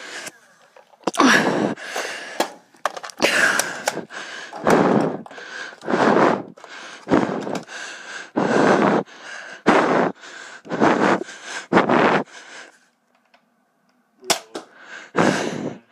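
A person panting hard, about one loud breath a second, with a short pause near the end broken by the sharp snap of a foam-dart pistol being fired.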